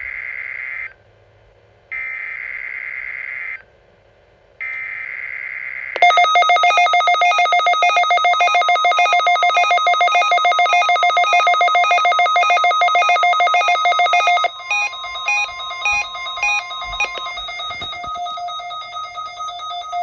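Emergency Alert System SAME header data: screechy, buzzy digital bursts, each about a second and a half long, ending about six seconds in. Then the Reecom R-1630 weather radio's alert sounds as loud, rapid pulsing beeps, with a steady tone beneath them for several seconds. The beeps carry on more quietly after about fourteen seconds, signalling the received Required Weekly Test.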